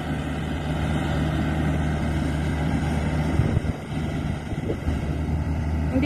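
Rice combine harvester's engine running with a steady low hum, dipping briefly a little past halfway through.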